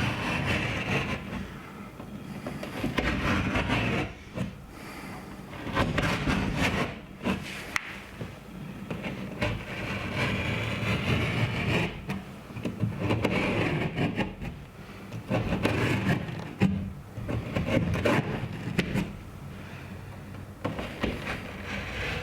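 Drywall being cut by hand with a drywall blade, a run of repeated, uneven scraping strokes through the gypsum board, with brief pauses between passes.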